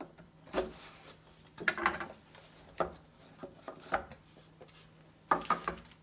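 Rigid cardboard box being handled and opened by hand: a handful of short scrapes, rubs and light knocks as the lid slides off the tray and the box is set on the table.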